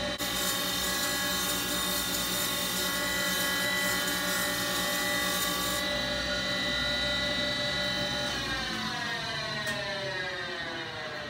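Flywheel grinder with a CBN wheel grinding a hard clutch floater plate: a steady whine of several tones with a hiss of grinding over it, and the hiss stops about six seconds in. A little after eight seconds all the tones fall steadily as the grinder winds down.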